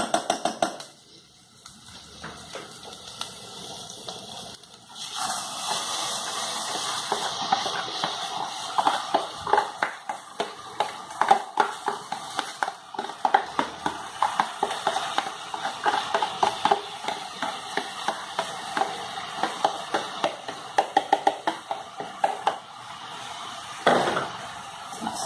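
Washed rice frying in hot oil with garlic and onion in a saucepan, a spoon stirring and scraping it against the pan in many quick uneven strokes. It is quieter for the first few seconds, and the sizzle and scraping start about five seconds in.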